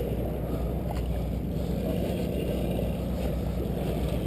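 Sportfishing boat's engine running with a steady low hum under a constant wash of water and wind noise.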